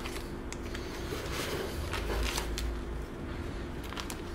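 Small plastic zip-lock parts bags rustling and crinkling as they are handled, with a few light clicks, over a steady low hum.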